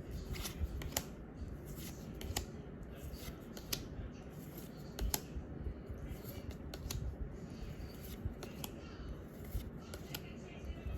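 Pokémon trading cards and booster pack wrapper being handled close up: irregular crisp snaps and short rustles as cards are slid and flicked.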